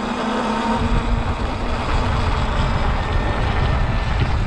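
Wind buffeting the microphone of a rider on a moving Sur-Ron X electric dirt bike; the low rumble grows stronger about a second in and stays gusty.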